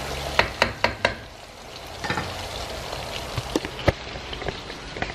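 Chicken pieces deep-frying in hot oil in a wok, a steady sizzle, with a few sharp clicks: four in quick succession in the first second and a couple more near the four-second mark.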